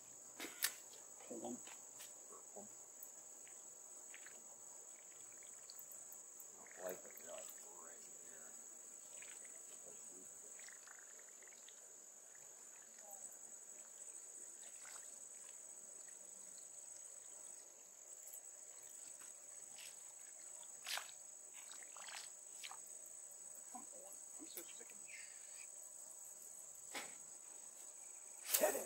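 Insects chirring in one steady, high-pitched chorus, with a few scattered faint clicks and knocks over it, the loudest near the end.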